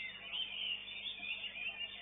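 Many caged songbirds singing at once, a dense, unbroken tangle of rapid chirps and whistles, with a faint steady hum underneath.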